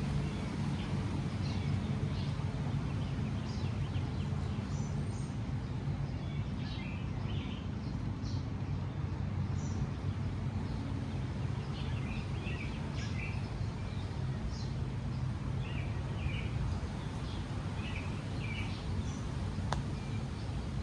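Birds chirping with short, scattered calls over a steady low rumble.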